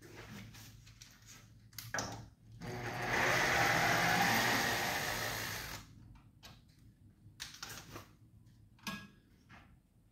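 Cordless drill-driver running for about three seconds, driving a self-drilling screw through the ceiling profile. A few sharp clicks of handling come before and after it.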